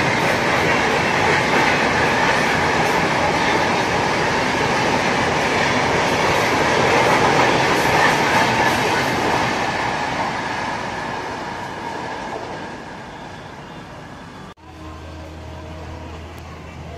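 Mumbai Tejas Rajdhani Express coaches passing at high speed: a loud steady rush of wheels on rail that fades away over the last few seconds. It ends in an abrupt cut to a quieter, steady low hum.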